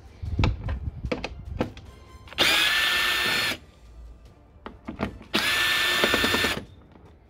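Black+Decker cordless drill-driver backing out bumper-cover bolts: two short runs of steady motor whine, each about a second long, with a few handling clicks and knocks before them.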